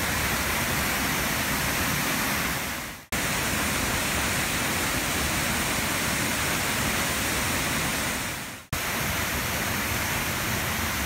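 Waterfall pouring into a rocky plunge pool: a steady rush of falling water. It fades out and cuts back in abruptly twice, about three seconds in and near the end.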